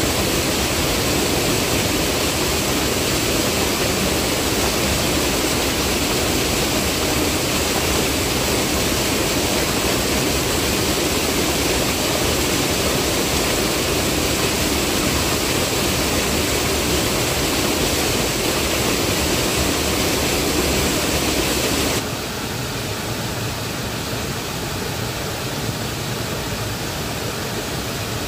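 Mountain stream rushing over boulders in a small waterfall cascade, a steady rush of white water. It drops a little quieter about three quarters of the way through.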